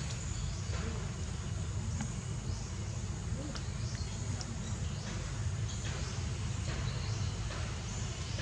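Outdoor ambience: a steady low rumble under a faint even hiss, with a few soft rustles or taps scattered through and no clear animal calls.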